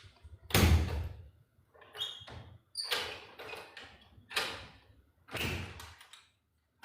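A series of about six irregular knocks and bumps, each dying away quickly, the first the loudest.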